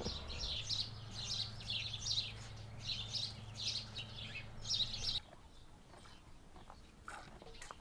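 Small birds chirping in quick repeated bursts over a steady low hum. Both cut off abruptly a little over five seconds in, leaving only faint, sparse chirps and small clicks.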